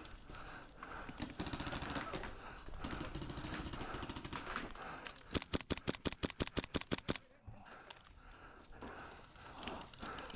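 Airsoft gun firing in rapid bursts: fast runs of shots in the first half, then a louder, evenly spaced string of about eight shots a second from about five to seven seconds in.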